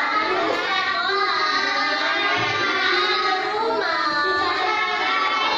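Children singing a song together with a woman, the notes held long and sliding from one pitch to the next.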